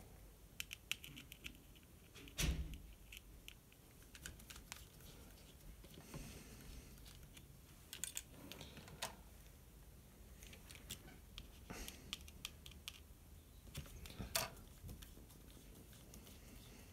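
Faint clicks and taps of a small screwdriver and the plastic parts of an opened pocket calculator being handled, with a louder knock about two and a half seconds in and another near fourteen seconds.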